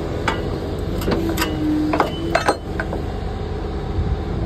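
Komatsu compact excavator's diesel engine running steadily, with a handful of sharp metallic clinks and knocks from the working machine as its arm and bucket move in the trench.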